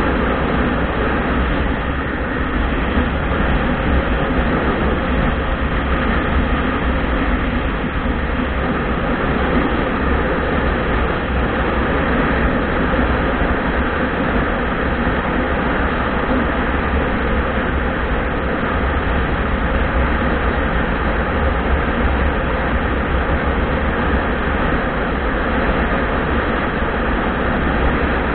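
Motorcycle riding at road speed heard from a helmet-mounted camera: loud, steady wind rush over the microphone mixed with road and engine noise.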